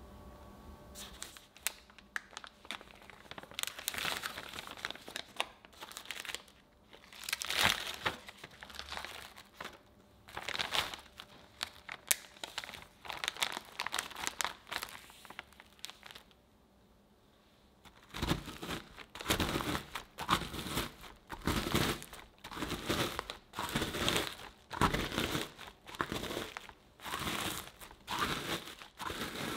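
Plastic zip bag crinkling and crunching as digestive biscuits inside are crushed by hand. After a short pause, a wooden rolling pin rolls back and forth over the bag in quick repeated strokes, grinding the biscuits into crumbs.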